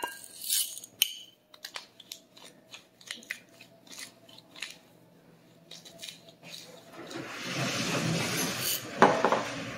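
Hand-twisted salt grinder being turned over a plate of vegetables: a run of small dry clicks, then a denser grinding rasp near the end.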